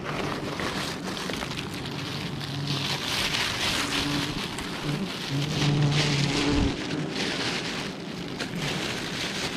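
Thin plastic bag rustling and crinkling as chunks of wild honeycomb are packed into it, loudest in the middle. A low buzz, from the bees around the hive, comes and goes under it.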